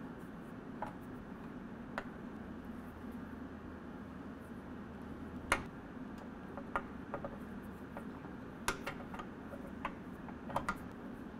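Irregular light metallic clicks, a dozen or so, some in quick pairs, from a T-handle 3/16-inch Allen wrench turning and re-seating in the bolts that fasten a running board to its bracket, over a steady low background hum.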